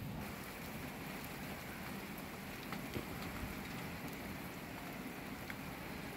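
Light rain falling: a faint, steady hiss with a few scattered ticks.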